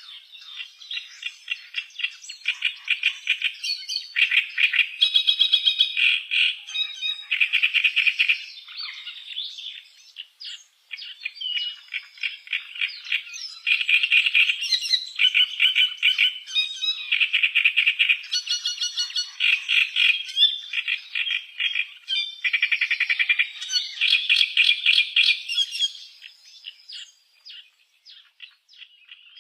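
A small songbird singing long runs of rapid, trilled, chattering phrases, one after another with short breaks, fading near the end.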